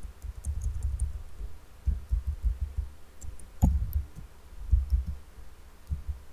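Typing on a computer keyboard, the keystrokes heard mostly as dull low thumps with faint clicks above them, in short irregular runs.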